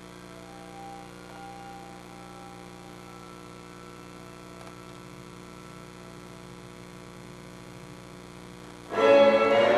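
Steady electrical mains hum with faint held tones above it. About nine seconds in, music starts suddenly and loudly.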